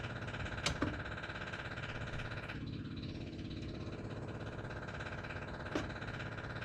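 A steady mechanical hum with a few light clicks, two close together about a second in and one near the end.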